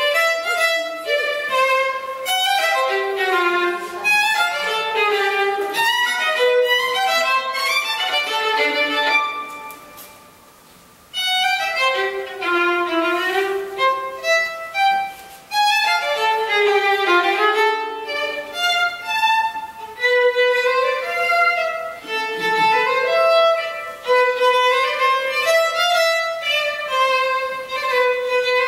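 Solo violin played without accompaniment, a melody of separate bowed notes. About ten seconds in, the playing stops for a second or so, then the melody resumes.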